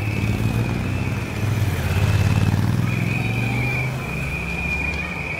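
Race motorcycles and team cars passing slowly, their engines running with the pitch rising and falling as they go by, under a steady high-pitched tone.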